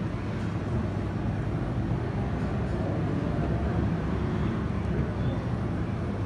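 Steady low rumble of restaurant background noise, with no distinct events standing out.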